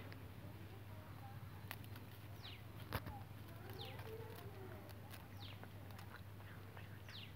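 A bird gives a short, high chirp that falls in pitch, repeated about every one and a half seconds, faint over a steady low hum. A sharp click stands out about three seconds in.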